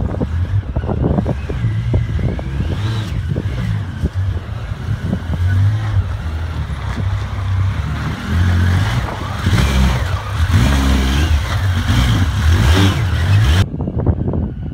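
Yamaha YXZ1000R's three-cylinder engine revving up and down at low speed as the UTV crawls over boulders in its low gear, with a whine rising and falling above it. Near the end the sound cuts to a duller, more distant engine.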